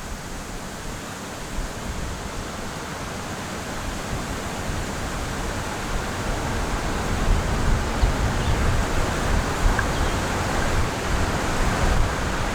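Wind rushing steadily, with gusts buffeting the microphone in low, uneven thumps.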